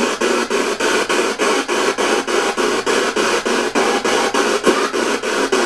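Spirit box sweeping through radio frequencies: a steady hiss of static chopped about five times a second, with brief snatches of broadcast sound.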